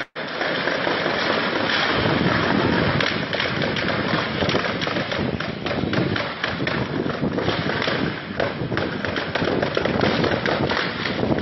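Gunfire: many sharp cracks in quick succession over a steady rough noise.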